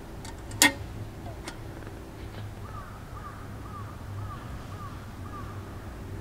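A sharp metallic clink of a stainless pot a little over half a second in, then a crow cawing about six times in a quick, even run, about two caws a second.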